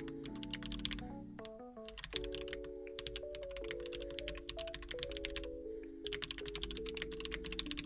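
Rapid typing on a computer keyboard in three bursts of quick key clicks, over background music with slow held chords.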